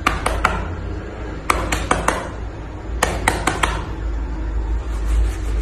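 Sharp clinking clicks in three quick clusters of three or four, over a low steady hum.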